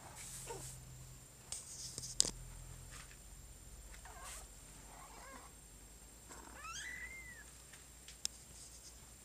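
A cat giving a few short, faint mewing cries that rise and fall in pitch, the clearest one near the end. Two sharp clicks sound, one about two seconds in and another near the end.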